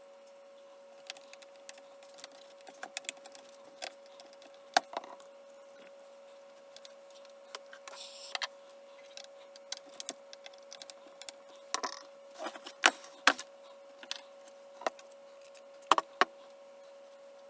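Irregular small clicks, taps and rattles of hard objects being handled, loudest in a cluster of sharp knocks past the middle and two more near the end, over a faint steady hum.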